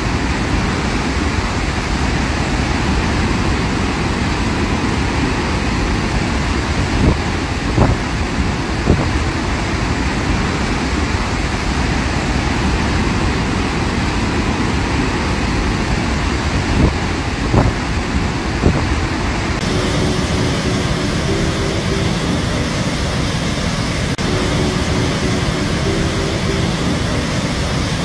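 Steady roar of Victoria Falls, a dense rushing noise heavy in the low end, with a few brief thumps.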